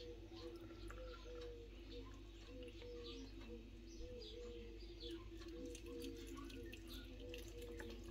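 Water poured from a plastic jug into glass jars packed with tomatoes, a faint trickle. Under it runs a soft steady background of low tones with short notes repeating every half second or so.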